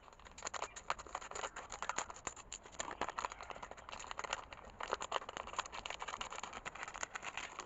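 Scissors cutting a thin disposable plastic cup, the plastic crinkling and crackling in the hands as a run of small irregular clicks.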